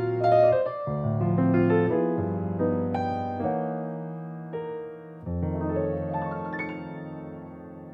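Background piano music: soft chords struck every second or two and left to ring, fading near the end.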